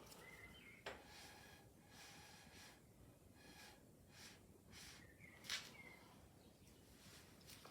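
Faint, repeated puffs of breath blown through a straw, one to two a second, pushing poured acrylic paint across the board. A sharp click comes about a second in and a louder one past the five-second mark, with a few short high chirps.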